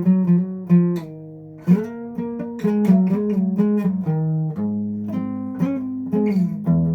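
Guitar playing a run of plucked notes and chords with no singing, with one note left to ring and fade about a second in before the picking resumes.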